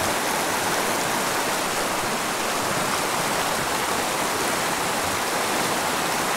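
Shallow mountain creek rushing and splashing over rocks in a riffle, a steady even water noise.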